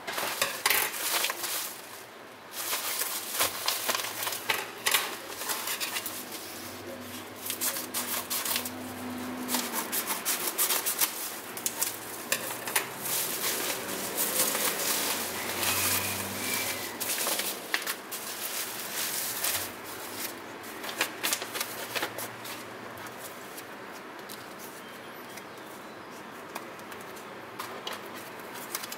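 Crinkling and rustling of a plastic mailer bag and bubble wrap being handled as the package is opened and the bubble-wrapped deck pulled out, in dense irregular crackles that thin out in the last few seconds.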